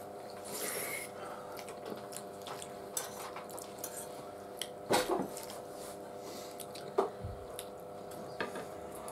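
Forks clinking and scraping on dinner plates while spaghetti is eaten, with a few sharper clicks, the loudest about five and seven seconds in, over a steady faint hum.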